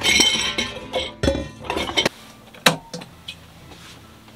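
Background music with kitchenware clinking and knocking, then a single sharp knock a little past halfway and a few light clicks.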